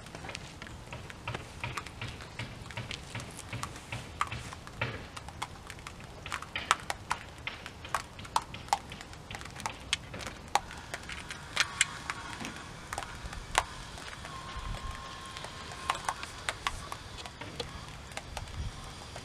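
Thick pressure-washer snow foam crackling as it dwells and slides down a painted surface, its bubbles popping in an irregular patter of small clicks, with occasional drips.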